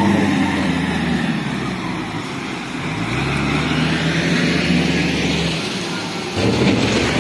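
Heavy diesel engine running steadily; its speed rises about three seconds in and falls back after a couple of seconds, with a louder stretch of noise near the end.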